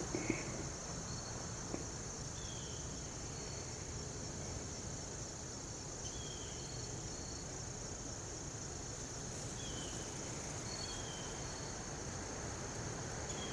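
Steady high insect trilling, like crickets, in the creekside woods, with a few short falling chirps a few seconds apart.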